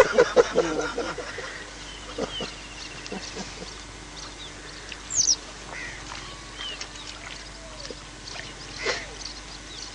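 Scattered short bird calls: a chirp about two seconds in, a loud falling whistle about five seconds in, and a few more chirps later, over a faint steady hum.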